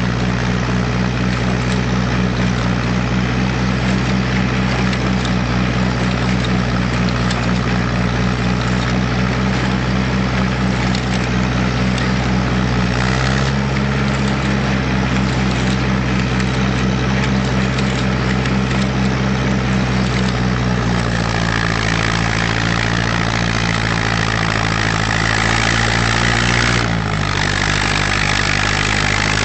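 Ferguson FE35 tractor engine running steadily, its note shifting to a new pitch about 13 seconds in, again about 21 seconds in, and dropping slightly near the end.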